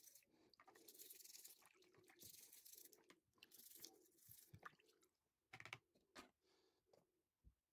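Faint scratchy strokes of a toothbrush scrubbing a plastic air-vent louver in water, about six strokes, then a few light knocks about three quarters of the way through.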